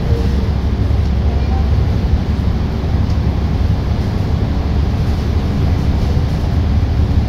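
Steady low rumble of a bus's engine and tyres heard from inside while it cruises through a road tunnel.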